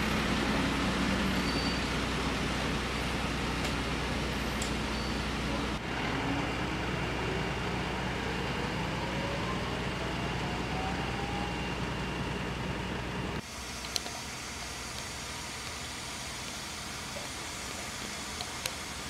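Fire engines' diesel engines running with a steady low drone, and a slow rising whine in the middle. It then drops abruptly to a quieter steady hiss with a couple of faint clicks.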